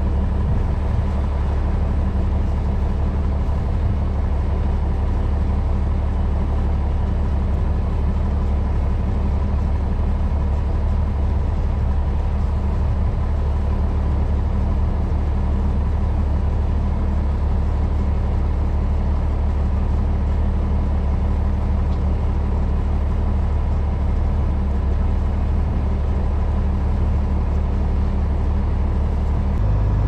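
Farm tractor engine running steadily with a low drone while it pulls a hay wagon; its low note shifts just before the end.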